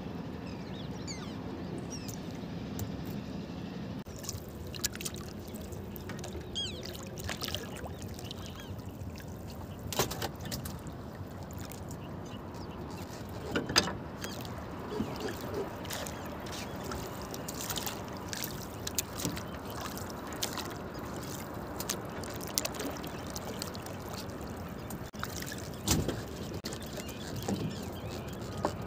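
A gill net being hauled by hand over the side of a wooden boat: a steady wash of water with scattered small clicks and rustles, and a few sharper knocks, the loudest about fourteen seconds in.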